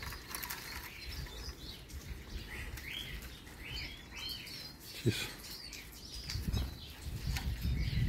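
Small finches giving a run of short chirping calls around the middle, with wing flutter and rustling toward the end as a hand-held Eurasian siskin is let go.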